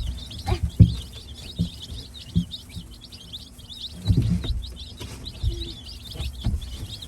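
Newly hatched chicks peeping nonstop, many short high chirps overlapping. A few dull thumps and knocks sound beneath them, the loudest about a second in and about four seconds in.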